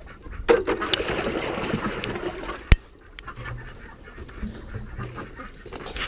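Water poured from a bucket into a ducks' water tub for about two seconds, with ducks quacking. A single sharp knock near the middle is the loudest sound.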